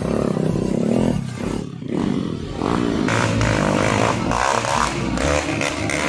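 Motocross dirt bike engines revving, rising and falling in pitch, with a brief drop in loudness about two seconds in.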